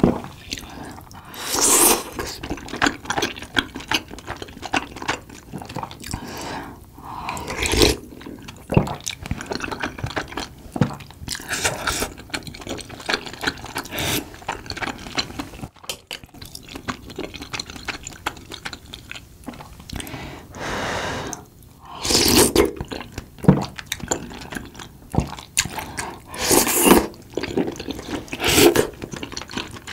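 Close-miked eating: chewing and wet mouth clicks, broken by several loud slurps of soupy tteokbokki broth and rice cakes from a ladle.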